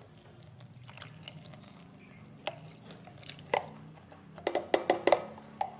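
Coconut milk poured from a cup into a glass mixing bowl of flour, a soft pour, followed by a few light clicks and taps, most of them bunched about three-quarters of the way in.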